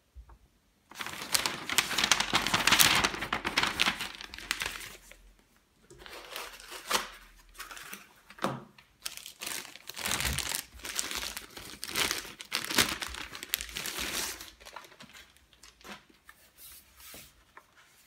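Thin plastic protective bag crinkling and rustling as it is handled and pulled off a laptop, in irregular bouts that are loudest in the first few seconds.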